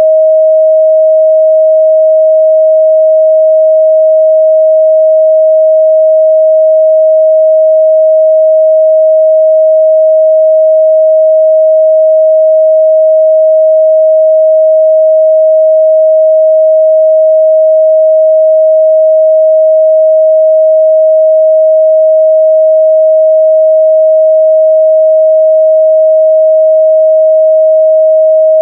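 A steady, loud 631 Hz sine-wave test tone, one unchanging pitch in the midrange.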